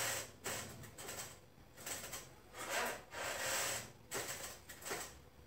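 Soft, repeated swishing of hands rubbing and pressing along a patient's outer thigh during a massage, skin and clothing brushing under the strokes.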